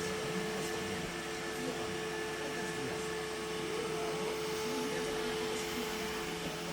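iRobot Roomba i7 robot vacuum running: a steady motor hum with two held tones over a whirring fan noise.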